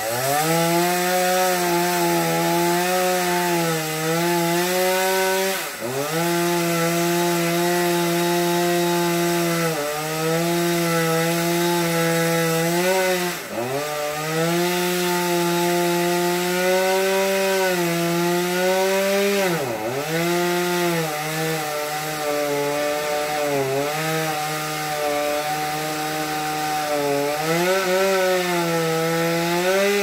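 Chainsaw running at high revs while cutting wood, its engine note sagging sharply several times as the chain bites in, then recovering.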